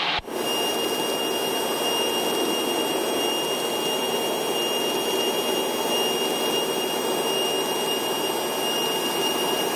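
Steady drone of a small single-engine propeller airplane in flight, engine and propeller running evenly, with a thin constant high whine over it. The sound dips briefly just after the start.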